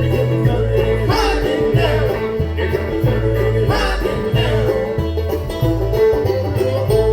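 Live bluegrass band playing: banjo rolls over a steady upright bass line, with guitar and other strings.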